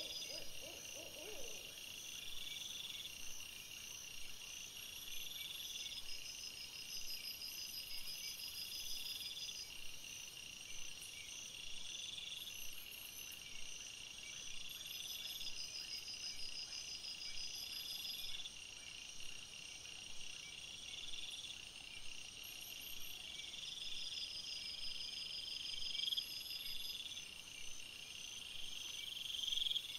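Night chorus of insects: several steady high trills with a rising buzzy phrase repeated about every three seconds. A low pulsed call fades out in the first second or so.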